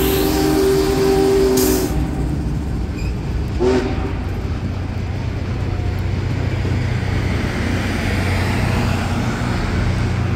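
A Union Pacific train rolling past on the rails, its diesel unit and passenger cars rumbling by steadily. A locomotive chime sounds a steady multi-note chord that cuts off about two seconds in, and a short tone blips once near four seconds.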